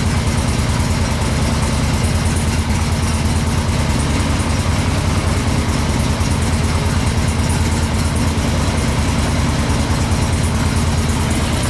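Engine idling steadily, an even low pulsing that runs without change.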